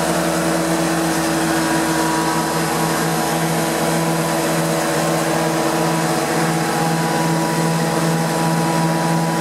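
Prochem Performer 405 truck-mount carpet cleaner running: its Nissan A15 four-cylinder engine driving a Sutorbilt Roots-type vacuum blower. The sound is a loud, steady drone with steady hum tones, held at a constant speed with no revving.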